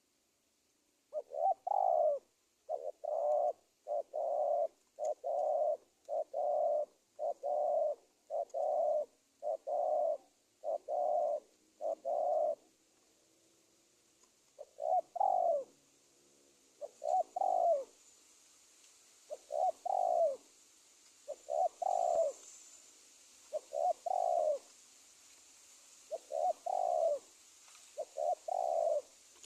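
Spotted dove cooing as a lure call for wild doves: a quick run of about eleven coos, roughly one a second, then after a short pause slower coos every two to three seconds.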